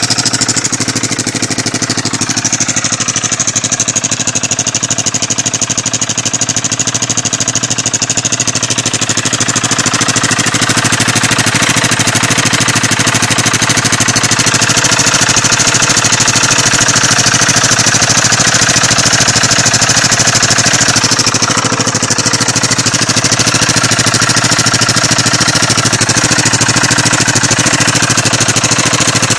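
KTM 690 SM supermoto's single-cylinder four-stroke engine idling steadily.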